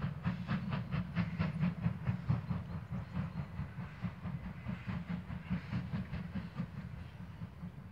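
Exhaust of two steam locomotives working together, a class 01 and a class 52, chuffing in quick regular beats several times a second. The beats are clearest in the first few seconds, then fade into a steady low rumble.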